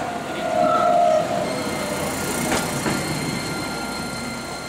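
Hi-tram battery-hybrid light-rail car passing slowly at close range. A falling whine comes in the first second, then steady high-pitched drive tones run under the rumble of the running gear, with two clicks from the wheels a little past halfway.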